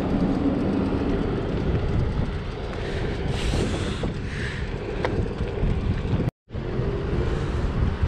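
Wind rushing over an action camera's microphone on a moving bicycle, over steady road and traffic noise. A brief hiss about three and a half seconds in, and the sound drops out for a moment just after six seconds.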